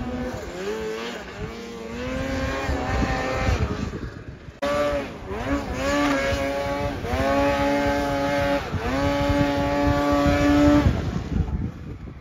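Mountain snowmobile two-stroke engine revving repeatedly: the pitch climbs, holds high for a second or two, then drops, several times over, with an abrupt change about four and a half seconds in.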